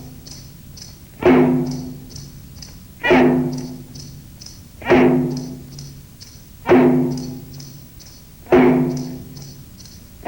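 Instrumental exercise music with a heavy pitched drum hit about every two seconds. Light, quick high ticks run between the hits.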